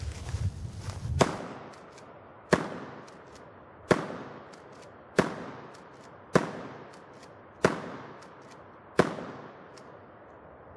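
Remington 870 12-gauge pump shotgun firing seven shots about 1.3 seconds apart, each bang followed by an echo trailing off.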